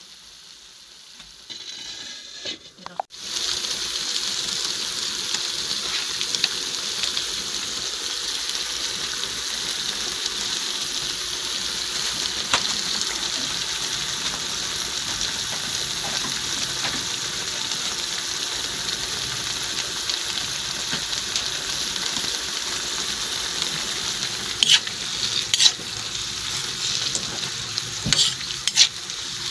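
Food sizzling as it fries in a hot pan, starting suddenly about three seconds in and running on steadily. A few sharp clicks of a utensil against the pan come near the end.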